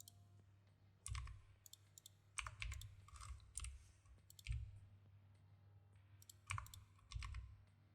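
Faint, scattered clicks of a computer mouse and keyboard, about eight of them, some in quick pairs, with pauses between.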